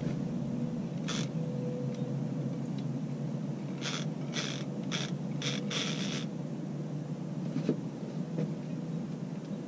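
Fishing reel's drag buzzing in short bursts, six times, the last the longest, as a hooked catfish pulls line off against it.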